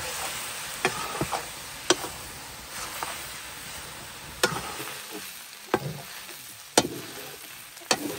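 Chunks of buffalo meat sizzling as they fry in a large wok over a wood fire. A metal ladle stirring them gives sharp clinks against the pan about once a second.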